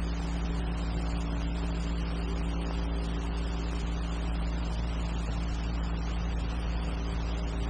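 Steady hum with hiss from an old film soundtrack, unchanging throughout, with no other sound.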